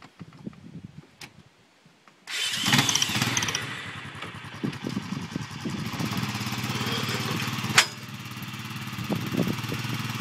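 Four-wheeler (ATV) engine starting abruptly about two seconds in after a few quiet seconds with small knocks, revving briefly and then running steadily. A single sharp click sounds about five seconds after the start.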